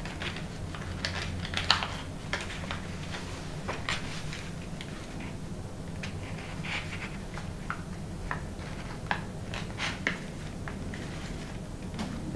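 Folded paper origami units being handled and pushed into one another: irregular crisp paper clicks and rustles, over a faint steady low hum.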